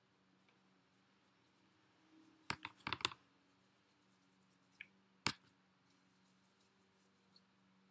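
Quiet room with a faint steady hum, broken by a quick run of small clicks and taps about two and a half seconds in and a single sharp click a couple of seconds later: a paintbrush being worked and knocked against paper while watercolor is brushed over a crayon rubbing.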